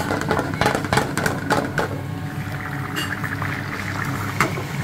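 Sliced garlic frying in hot oil in a frying pan, sizzling and crackling, with the crackles busiest in the first two seconds. A steady low hum runs underneath.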